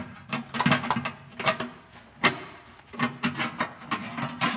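Transmission inspection cover knocking and scraping against the flywheel housing and exhaust pipe as it is worked up into place by hand: a quick run of sharp clacks and rubbing.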